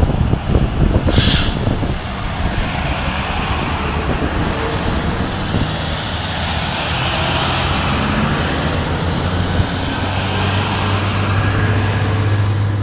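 Diesel utility trucks (bucket and boom trucks) passing at close range, with engines running and tyre noise on the road. A short air hiss comes about a second in. A low engine hum grows stronger near the end as another truck passes.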